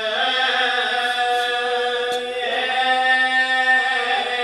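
Male voices chanting long wordless held notes, a steady drone that shifts pitch twice. It is the sustained backing note sung under a Punjabi lament (vain) recitation at a majlis.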